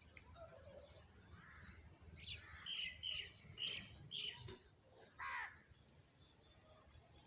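Sparrows chirping: a quick run of short chirps a couple of seconds in, then a single longer, harsher call that falls in pitch about five seconds in.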